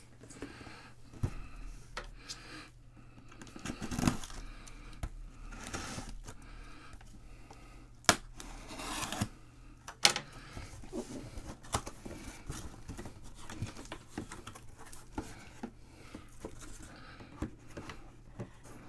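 Gold Rush mini helmet box being opened and unpacked by hand: cardboard tearing and scraping and plastic wrap crinkling, broken by sharp clicks and knocks, the loudest two about 8 and 10 seconds in.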